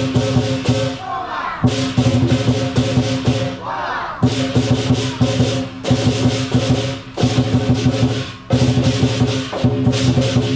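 Lion dance percussion: drum, clashing cymbals and gong playing loud, driving phrases with brief breaks every couple of seconds.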